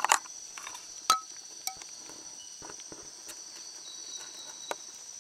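Night insect chorus: a steady high-pitched trill. A few sharp clicks and rustles cut through it, the loudest right at the start and about a second in, with a smaller one near the end.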